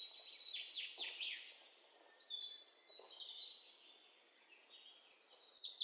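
Birds chirping and singing faintly: a string of quick downward-sweeping calls and a thin held whistle, over a soft hiss.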